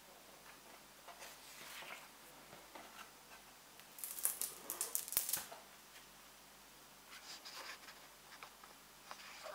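Paper pages of a hardcover book rustling under a hand, then a louder flurry of page and cover handling with a soft thump about five seconds in as the book is closed, followed by a few lighter rustles.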